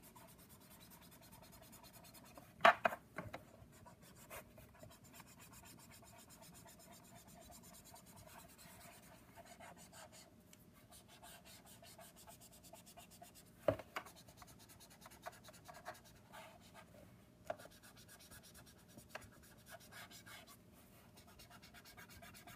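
Copic Sketch alcohol marker's brush nib rubbing and scratching faintly across card stock in quick, pressed strokes. A sharp knock comes about three seconds in, and a smaller one just past the middle.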